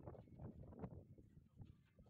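Faint low rumble with a few light clicks and taps, as a mason's steel trowel works mortar on concrete blocks; one tap stands out about a second in.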